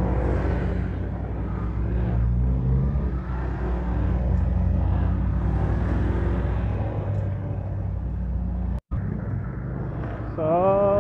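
Motorcycle engine running steadily at road speed, with wind and road noise, heard from the rider's seat. The sound drops out for a split second near the end, and a strong rising tone follows just before the end.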